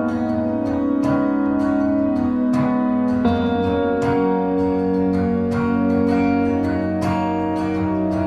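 Background instrumental music: plucked string notes, guitar-like, over held chords in a steady rhythm.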